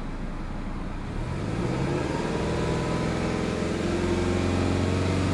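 Subaru Legacy Touring Wagon 2.0GT spec B's turbocharged EJ20 flat-four, just started and still cold, revved from idle up to about 3000 rpm and held there. The rise begins about a second in and the note then stays steady.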